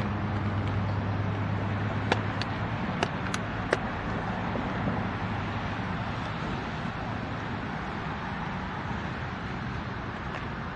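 Low steady rumble of an approaching Norfolk Southern freight train's diesel locomotive mixed with road traffic noise, with a hum that fades about two and a half seconds in. About five sharp ticks come between two and four seconds in.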